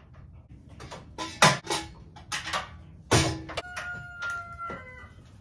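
Tools and metal parts clanking and clicking in a car's engine bay as exhaust headers are fitted, several sharp knocks in the first three and a half seconds. After that a steady high-pitched sound with overtones runs for over a second.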